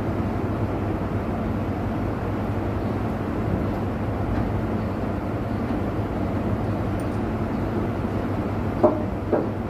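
Steady low drone of a running engine or machine, with two sharp knocks about half a second apart near the end.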